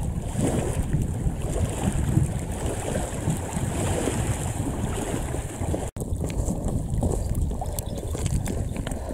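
Wind buffeting the microphone, with small waves lapping against a stony lake shore. The sound drops out for an instant about six seconds in.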